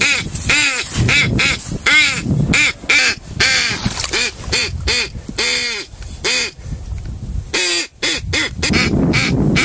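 Duck call blown in a long run of quacks, a few a second, each a short nasal note that rises and falls in pitch, with a brief break about eight seconds in.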